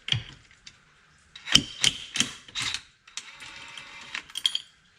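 Socket ratchet wrench working on the tight steering-wheel hub nut: about five loud clacks, then a fast run of ratchet clicks for about a second and a half near the end.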